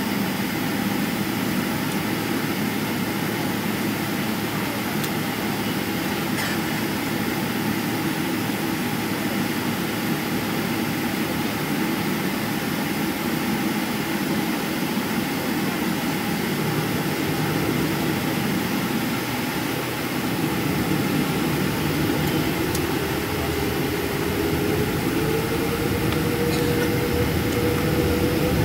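Cabin noise of a Boeing 777-300ER taxiing: a steady rumble and air rush from its GE90-115B engines at low power. In the last few seconds a tone slowly rises as the engines begin to spool up for take-off.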